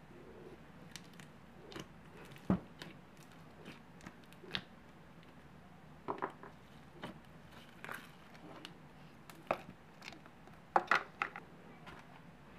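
Thick slime loaded with cereal pieces being pressed and kneaded by hand, giving irregular sticky pops and clicks, with a few sharper ones about two and a half seconds in and near the end.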